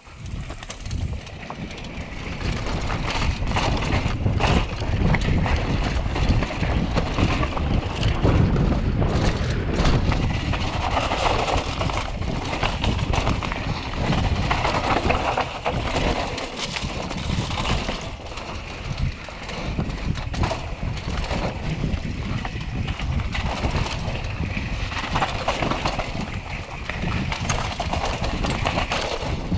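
Mountain bike rolling fast down a dirt singletrack: tyres on loose dirt, with the chain and frame rattling and knocking over bumps and wind buffeting the microphone. The noise builds over the first couple of seconds as the bike picks up speed.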